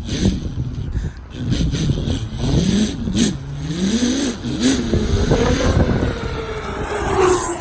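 Mustang engine sound effect from an RC truck's sound module, revving up and down several times, then holding a high rev and slowly winding down near the end, over rough crackling noise.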